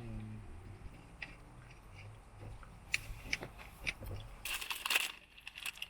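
Packaging being crinkled and handled: scattered small crackles, then a louder burst of crinkling and rustling about four and a half seconds in.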